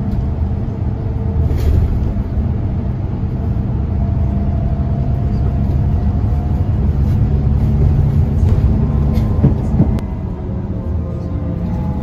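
Steady low rumble of an intercity coach's engine and tyres on the highway, heard from inside the passenger cabin, with a few light clicks and rattles.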